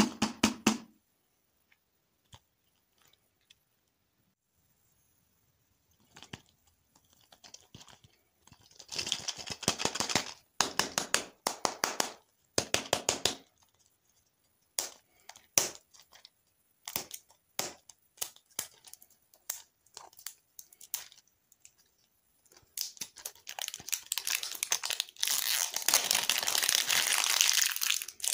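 Crinkly plastic wrapper being handled and torn off a ball-shaped lollipop, in short bursts at first and then a longer unbroken stretch of crinkling and tearing near the end. A couple of dull knocks right at the start as hands press down on the wrapped lollipops.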